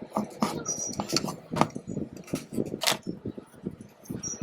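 Irregular light metallic clicks and knocks of tools and parts being handled on a ceiling fan's freshly closed die-cast motor housing.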